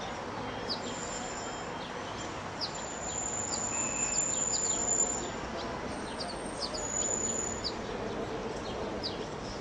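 Small birds chirping: short, high calls scattered throughout, with a thin high whistle held for a couple of seconds in the middle, over a steady outdoor background hum.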